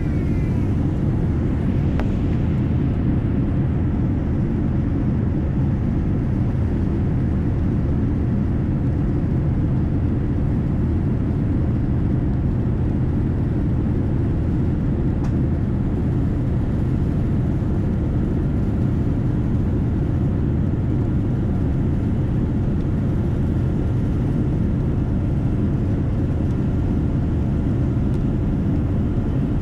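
Steady low rumble of a Boeing 787 Dreamliner's cabin in flight: engine and airflow noise, even in level and pitch.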